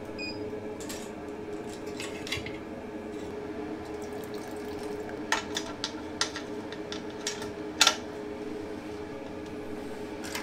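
A metal spoon stirring water in a stainless steel pot, clinking and scraping against its sides at irregular moments, the loudest clink about eight seconds in. A steady hum runs underneath, from the Grainfather's recirculation pump running during the mash.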